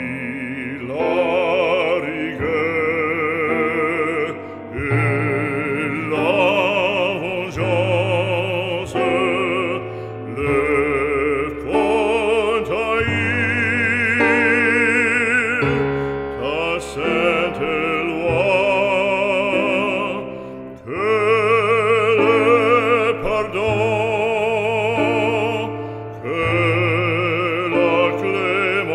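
Background music: a solo operatic voice singing long notes with a wide vibrato over a classical accompaniment.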